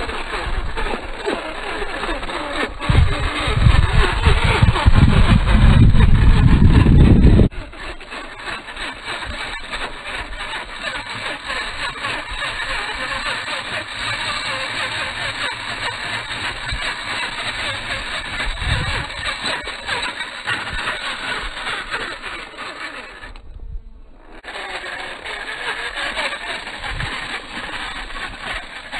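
RC rock crawler driving over loose gravel and rock, its electric motor and gears running and the tyres scrabbling on stones. A loud low rumble, like wind on the microphone, joins about three seconds in and cuts off abruptly a few seconds later.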